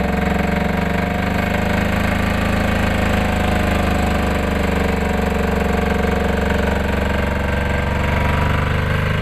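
A 1960 Holder articulated garden tractor's 12-horsepower Sachs two-stroke diesel engine running steadily at an even speed. Its sound is unusual for a diesel.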